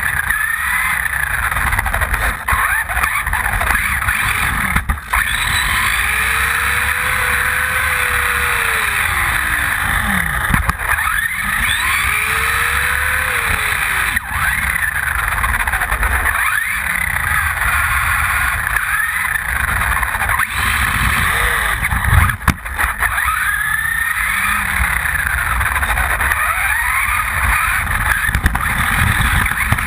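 Losi Mini-T electric RC truck heard on board: its motor and gears whine up and down in pitch as the throttle is worked, over a steady rumble of tyres on asphalt. There are a few sharp knocks along the way.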